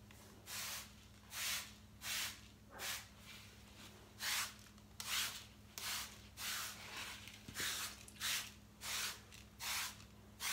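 Hand trigger spray bottle of Dixie Belle green patina spray squirting over a dozen times in a row, a short hiss about every three-quarters of a second. The spray is misting the wet iron and bronze patina paint, the step that makes it react and rust.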